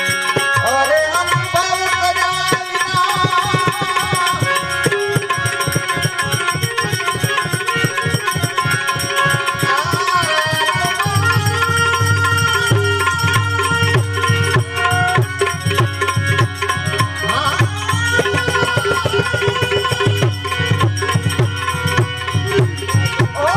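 Instrumental interlude of a Gujarati bhajan: tabla keeping a steady rhythm under a melody line with sliding notes. The drumming grows fuller about eleven seconds in.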